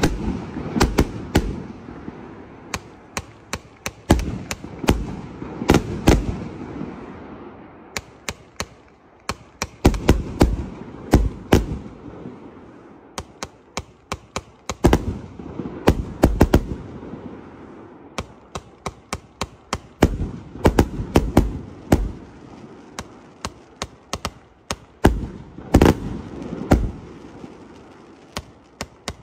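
A 365-shot firework cake firing: shells launching and bursting as sharp reports in quick, irregular runs, several to a second at times, with short lulls between.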